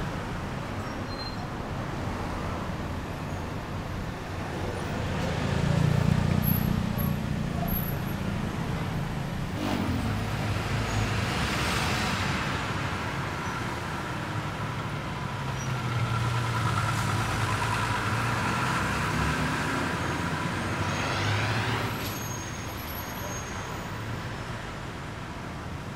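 Night street traffic: motor vehicles passing with engine rumble that swells and fades, loudest about six seconds in and again from about two-thirds of the way through, over a steady street background.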